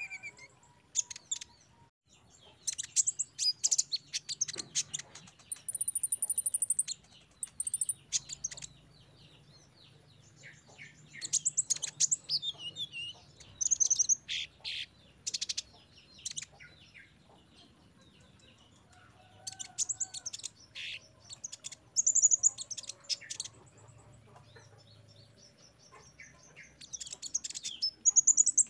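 Male Van Hasselt's sunbird (kolibri ninja) singing: bouts of rapid, high, sharp chirps and trills lasting a second or two, repeated about six times with pauses of a few seconds between, including one short high whistle held steady about six seconds in.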